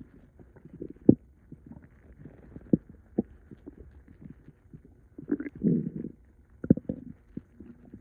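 Stomach and intestines gurgling and rumbling after a gallon of liquid was drunk quickly: irregular low gurgles and pops, with a louder bubbling gurgle a little past the middle and another sharp one near the end.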